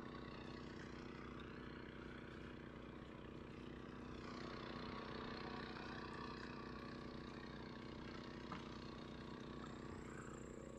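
Faint engine running steadily at an even pitch, with no change in speed.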